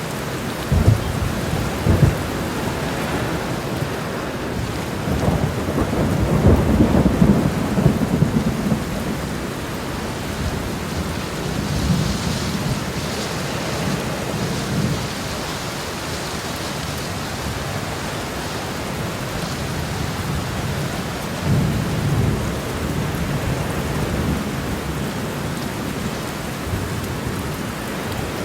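Heavy rain falling on a road, an even, steady hiss. Low rumbling swells and thumps come through it several times, the loudest and longest from about five to nine seconds in.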